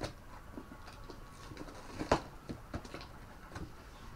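Handling noise from unpacking a small portable welding machine: scattered small clicks and light knocks of the unit and its packaging, with one sharper knock about two seconds in.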